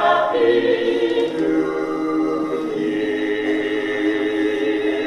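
A choir singing long, held chords.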